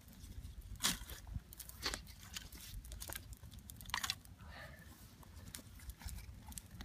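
Dry twigs and kindling crackling and snapping: a handful of sharp, scattered snaps a second or so apart, over a low steady rumble.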